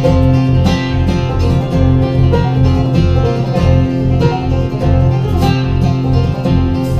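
A band plays an instrumental passage with no vocals: plucked strings over a steady pulsing bass beat.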